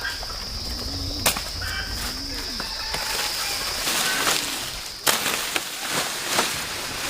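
Chickens clucking, with a few sharp knocks: one about a second in and several more in the second half over a rising hiss.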